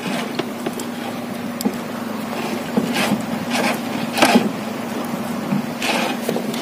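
Engine running with a steady low hum, with a few short knocks and scrapes about halfway through and again near the end.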